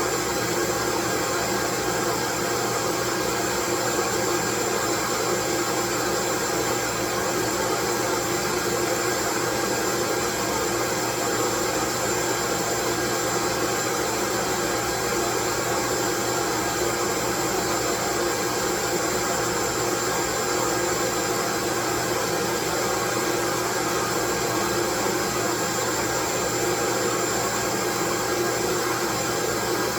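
Steady, unchanging white noise: an even rushing hiss at constant level, with a few faint steady hums running through it.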